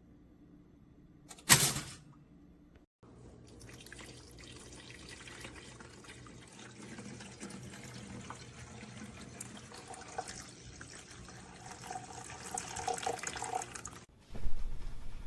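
A sharp click, then running water for about eleven seconds, growing louder before it stops abruptly; another louder sound starts just before the end.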